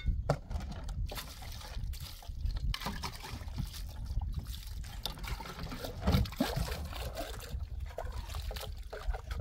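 Water trickling and splashing irregularly.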